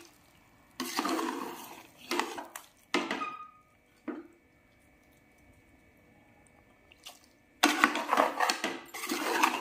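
A spoon stirring and scraping chicken and masala around a pressure cooker pan, mixing in freshly added spices. There are several scraping strokes over the first four seconds, a pause of about three seconds, then a quick run of scraping near the end.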